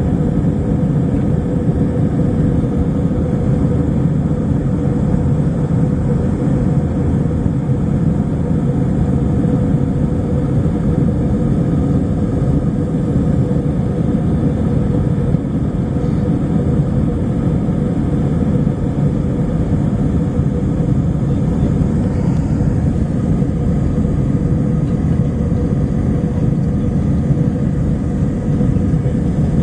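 Steady cabin noise of a jet airliner in flight: a constant low rush of engines and airflow, with a faint steady hum running through it.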